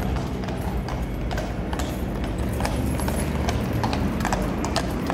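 Household Cavalry horses walking on paving stones, their shod hooves clip-clopping in an irregular string of sharp strikes, several a second, from more than one horse.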